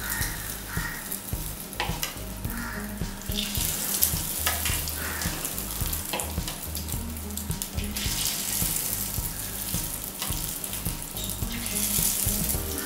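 Beaten egg mixture ladled into hot groundnut oil in the cups of a cast-iron kuzhi paniyaram pan, sizzling and frying, the sizzle swelling each time a fresh ladleful goes in.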